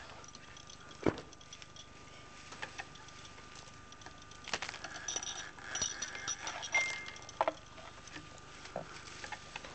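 Scattered clicks and ticks from a small homemade kinetic sculpture's mechanism, beads knocking against each other and the track as its lever arm moves. The clicks are irregular, the sharpest about a second in and a cluster around seven seconds, over a faint steady tone.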